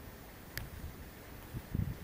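Wind rumbling on the camera microphone, with a small click about half a second in and louder low bumps near the end.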